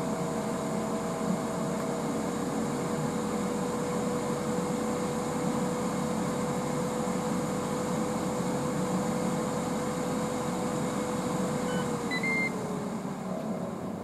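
Ninja Foodi's air-crisp fan running with a steady whine. A few short beeps sound near the end, and the whine then falls in pitch as the fan slows; the display reads "COOL", the cooker's cool-down after the cook ends.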